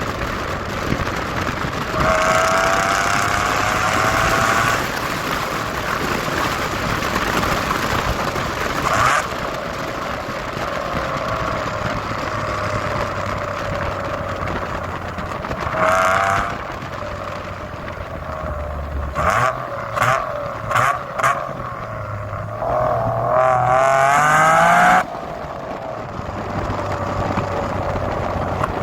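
Mitsubishi FTO GPvR's 2.0-litre 6A12 MIVEC V6 and exhaust running under load, the revs climbing hard several times as it accelerates. A quick run of three or four short throttle blips comes around two-thirds of the way through.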